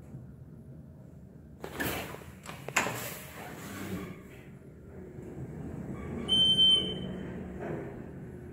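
Inside a traction elevator car: two short clunks about two and three seconds in, then a low steady hum of the car. Partway through the hum comes a short, high electronic beep lasting about half a second, the loudest sound.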